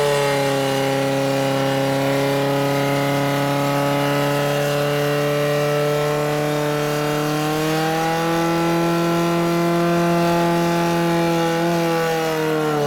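Portable fire pump engine running hard at a high, steady pitch while pumping water through the hose lines to the nozzles. The pitch rises slightly about eight seconds in and dips near the end.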